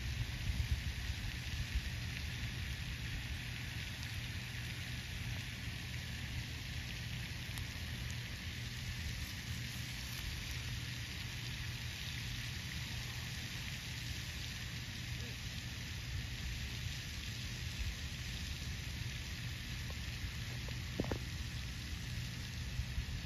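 Steady outdoor background noise: wind buffeting the microphone as a low, uneven rumble under an even hiss, with one faint short sound near the end.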